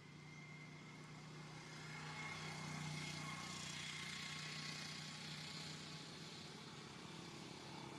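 Distant engine noise: a low steady hum with a wash of sound that swells over the first few seconds and then eases a little, with a faint steady high tone above it.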